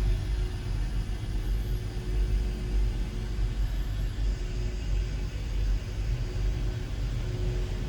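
Steady low rumble of an airliner cabin during descent, with a faint steady hum over it.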